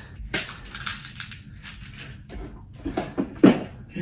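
Light clicks and clatter of tableware and food containers being handled, with a louder knock a little past three seconds in.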